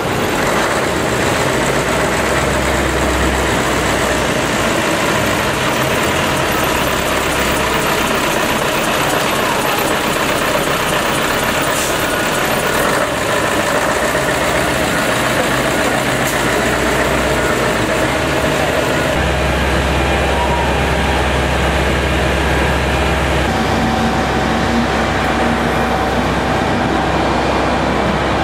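Heavy diesel fire truck engines running and idling, a steady low hum with street noise around it. The low hum grows heavier about two-thirds of the way in.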